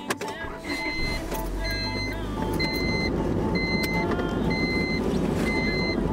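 A car's electronic warning chime beeping six times, about once a second, over the steady low rumble of the car.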